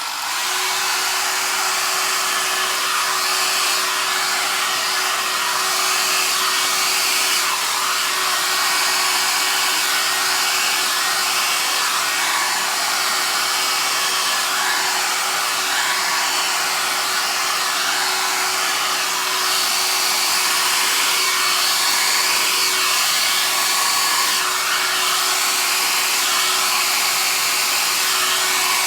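Small handheld hair dryer running steadily, a continuous rush of blown air with a steady hum.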